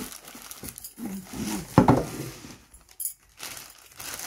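A cardboard box being handled and a plastic-wrapped non-stick pot slid out of it. The loudest moment is a single thump about two seconds in as it comes down on the wooden table, followed by a smaller knock and plastic wrapping rustling near the end. A short vocal sound comes just before the thump.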